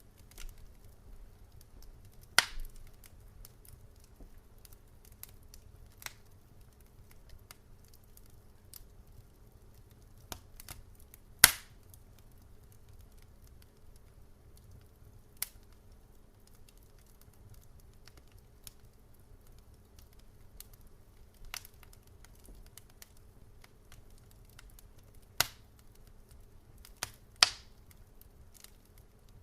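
Campfire crackling: sharp, separate pops and snaps of burning wood every few seconds, the loudest about eleven seconds in, over a faint steady low background.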